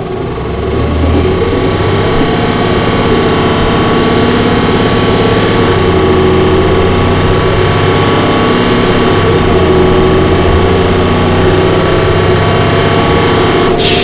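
Orion VII bus's Cummins Westport ISL G natural-gas engine and drivetrain running under way, with many held tones. The sound swells over the first second or so, then holds steady.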